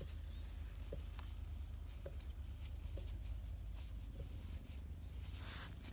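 A bare hand scraping and digging in loose soil: soft scratching and rustling of earth and grass, with a few faint ticks and a low steady rumble underneath.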